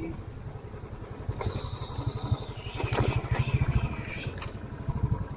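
Motorcycle engine running at low speed over a rough gravel track, its exhaust giving an even, low thumping, with a rush of wind noise over the middle seconds.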